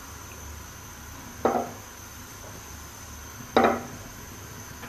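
Whole cardamom pods frying in a karahi of hot oil, with two sharp pops about two seconds apart over a faint steady hum.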